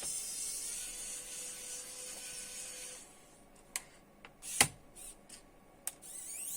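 A steady hiss for about three seconds, then small clicks and knocks of laptop parts and tools being handled on the bench, with one sharp knock a little past the middle.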